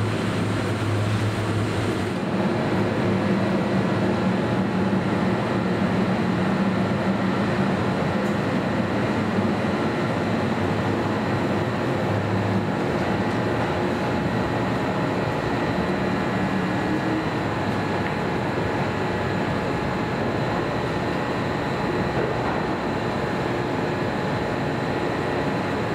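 Kintetsu electric train running, a steady rumble with faint steady tones from the motors.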